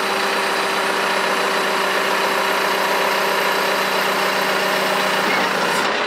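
John Deere 310SL backhoe-loader's diesel engine running steadily with a constant hum while its hydraulics swing the backhoe boom to the left.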